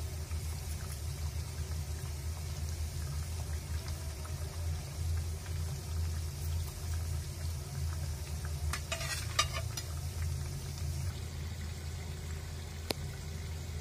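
Shankarpali dough pieces deep-frying in a kadhai of oil, bubbling and sizzling steadily over a low hum, while a perforated metal spoon turns them. About nine seconds in there is a brief cluster of metallic scraping clicks, and a single sharp tap near the end.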